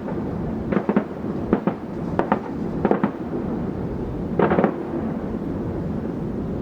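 Aerial firework shells bursting: sharp bangs in quick pairs about every three-quarters of a second, then a rapid cluster of bangs about four and a half seconds in, over a steady low rumble.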